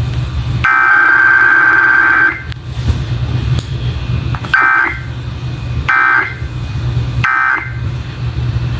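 Emergency Alert System weekly test data bursts on FM radio. The last of the three long SAME header bursts, a buzzy electronic screech under two seconds long, is followed about two seconds later by three short end-of-message bursts spaced about a second and a half apart. A steady low hum runs underneath.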